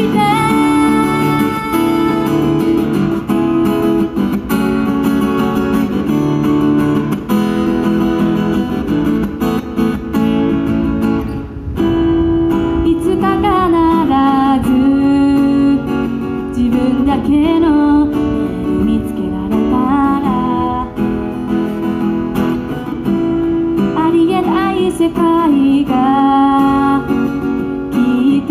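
A woman singing to her own strummed acoustic guitar, a solo live song; her voice stands out most in the second half.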